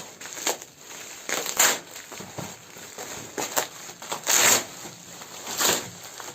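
Packaging wrap being pulled off and unwound by hand, crinkling and rustling in irregular bursts. The longest and loudest rustle comes a little past halfway.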